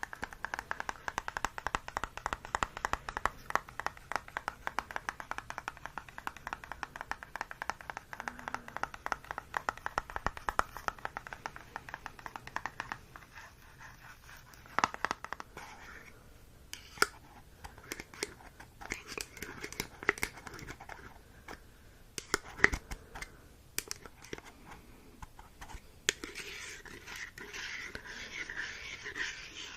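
Fast ASMR scratching, many strokes a second, for about the first half, then slower scattered taps and scrapes, and a soft crinkling rustle near the end.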